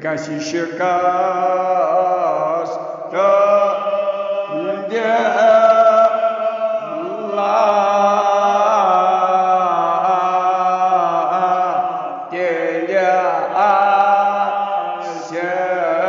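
An elderly man chanting a Kashmiri marsiya, a Shia elegy, solo in long held, wavering melodic lines, with short breaks for breath between phrases.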